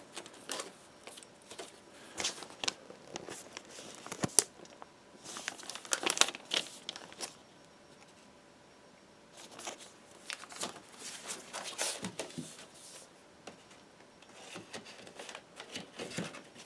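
Paper inner sleeve of a vinyl LP rustling and crinkling as it is handled and slid back into its cardboard gatefold jacket, in scattered bursts with a quiet pause of about two seconds midway.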